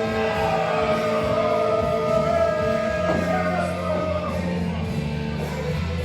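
Wrestler's entrance music: a rock song with singing, played loud and steady.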